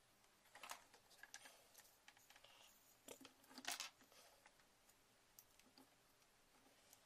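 Faint rustling and scratching of a thin plastic charger cable and heat-shrink tubing being handled and worked over the wire, in short scattered bursts. The loudest scratchy burst comes about three and a half seconds in.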